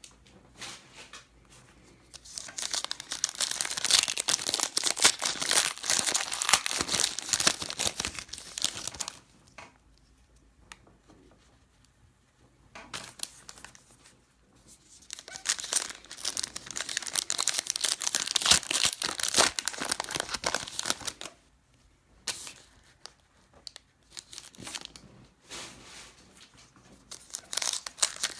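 Sports card pack wrappers being torn open and crinkled by hand, in three long spells of crackling with short pauses between.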